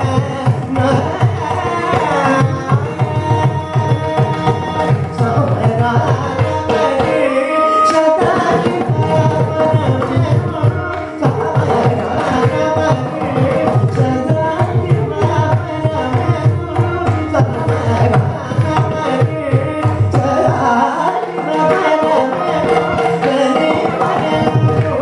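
Carnatic music: a male vocalist singing with violin accompaniment over fast, steady mridangam strokes. The mridangam drops out briefly about seven seconds in, and again for about three seconds past the twenty-second mark.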